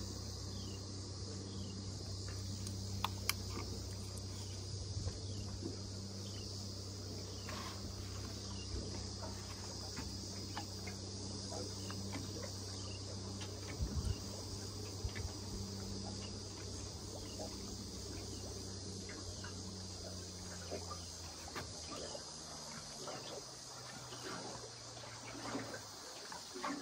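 Steady high-pitched drone of an insect chorus, with a steady low hum underneath that drops lower and fades out near the end, and scattered light clicks.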